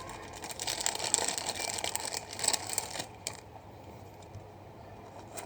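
Trading cards being handled and flipped through by hand: a quick run of small clicks and rustles for about three seconds, then only faint handling noise.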